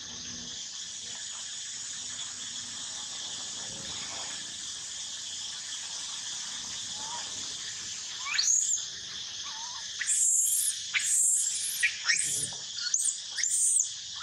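Steady high-pitched insect chorus. About eight seconds in, a young macaque starts crying: a shriek rising in pitch, then a quick string of short, shrill cries in the last few seconds, louder than everything else.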